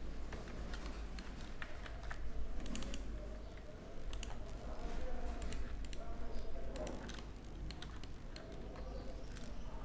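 Irregular clicks of a computer keyboard and mouse being used, over a steady low electrical hum.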